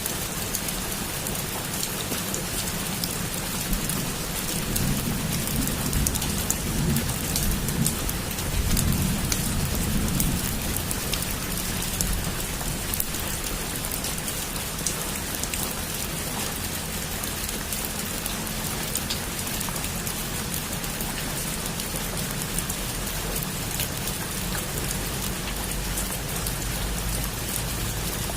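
Heavy rain falling steadily on a rooftop, with a low rumble of thunder swelling and fading about five to eleven seconds in.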